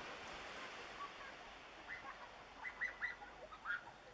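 A bird calling with a quick run of short calls, about half a dozen in the second half, over a steady hiss of wind and surf.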